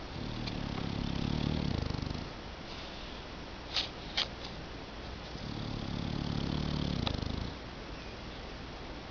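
A sleeping dog snoring: two long, low, rattling snores about five seconds apart, each lasting around two seconds. Two short clicks come in the pause between them.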